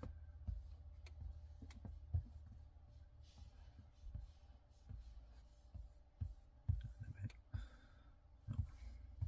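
Quiet car cabin: a steady low hum, with scattered soft taps and clicks as a finger touches and drags across the dashboard touchscreen.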